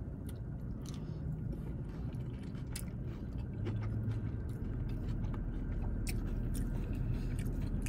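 Close-up wet chewing and small mouth clicks from a mouthful of falafel rice bowl being eaten, over a low steady rumble that grows a little louder about halfway through.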